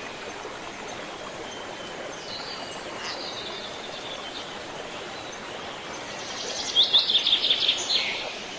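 Mountain river rushing steadily, with spring birds singing over it: a few faint calls early, then a loud, fast song of rapidly repeated high notes about seven seconds in.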